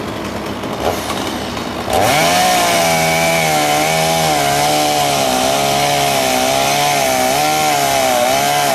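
Chainsaw running, then throttled up about two seconds in to high revs that it holds, the pitch wavering as the engine is loaded and unloaded while cutting wood.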